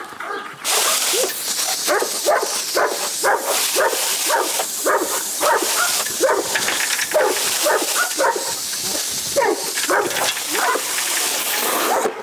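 Shelter dogs barking and yelping over and over in the kennels, several calls a second. A steady hiss starts suddenly about a second in and sits behind the barking until near the end.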